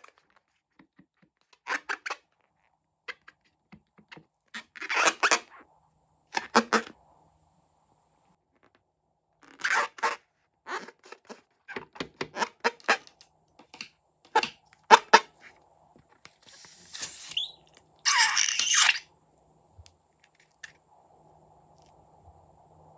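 Hands working rubber balloons and slime: scattered squeaks, snips and crackles, then a longer rushing noise a few seconds before the end.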